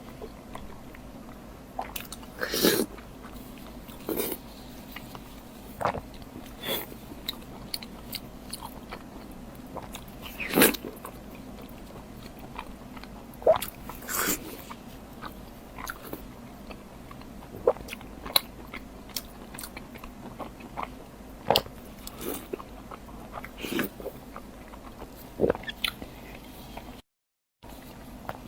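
Close-miked eating: scattered bites, chewing and wet mouth smacks at irregular intervals over a faint steady hum.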